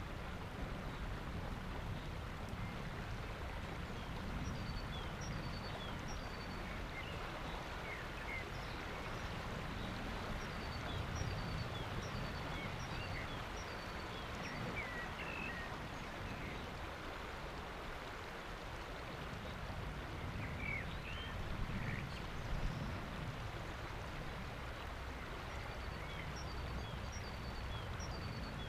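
River water flowing and lapping against a rock ledge at the water's edge, a steady rushing, with short high bird chirps scattered through it.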